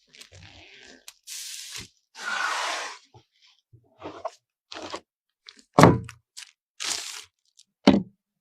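Hands handling computer parts and packaging: a string of short crinkling, rustling bursts and knocks, with two sharp, loud knocks about six and eight seconds in.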